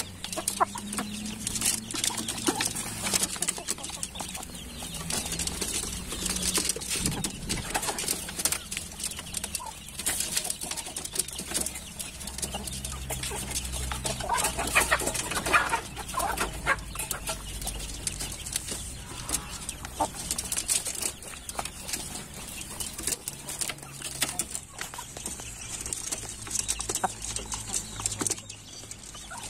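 Domestic chickens pecking feed from a plastic bowl: a busy run of sharp beak taps, with short clucks now and then.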